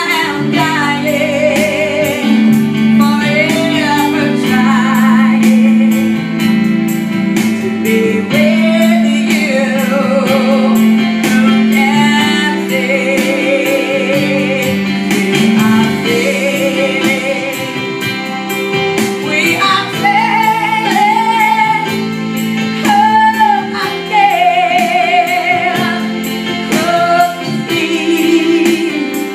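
A woman singing with vibrato, accompanying herself on an electronic keyboard playing sustained chords.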